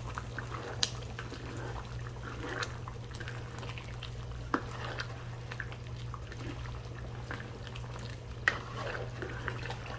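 A spoon stirring simmering chicken curry in a pot, with a few sharp clicks of the spoon against the pan, over a steady low hum.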